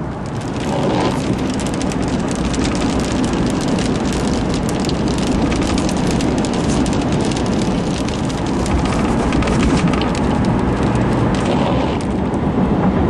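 Steady rushing noise of a car driving at speed, heard from inside; it builds up about a second in and then holds.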